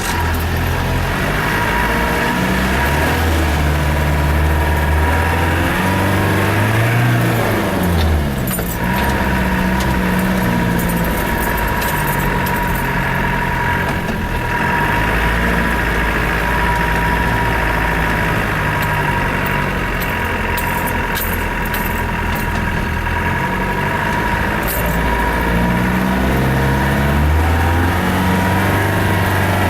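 Land Rover engine running as it is driven off-road, its pitch rising and falling as it revs and eases off. A steady high whine runs under it, with scattered short knocks and rattles.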